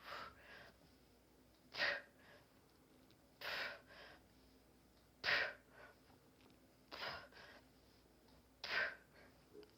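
A person breathing hard during ab crunches: six sharp, forceful exhales, about one every 1.7 seconds, one with each rep.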